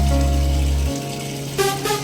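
Background music with held notes over a deep bass; the bass drops out about a second in, and a short burst of notes comes near the end.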